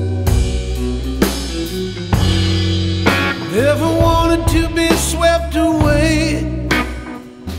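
Rock music with a drum kit and guitar. About halfway through, a melody note slides up and is held with a slight waver.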